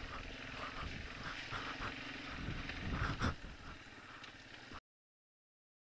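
1989 Yamaha Moto-4 250 ATV's engine running at low speed as the quad rolls to a stop, with a sharp knock a little over three seconds in. The sound cuts off abruptly about five seconds in.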